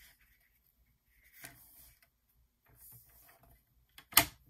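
Sheet of cardstock being slid and lined up on a paper trimmer, with faint soft rustles, then one sharp plastic click from the trimmer near the end.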